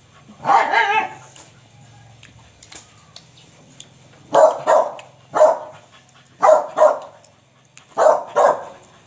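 A dog barking repeatedly, in short bouts that are often two quick barks in a row.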